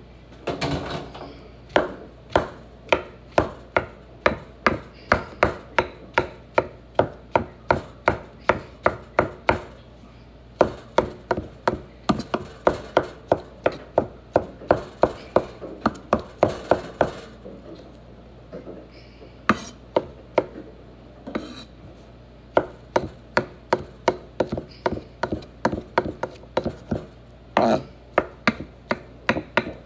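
Kitchen knife chopping mushrooms on a wooden cutting board: runs of steady knocks, about two to three a second, broken by a few short pauses.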